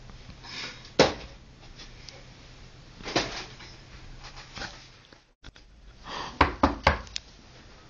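A few scattered knocks and thumps over a faint low hum, with a quick cluster of sharp knocks near the end.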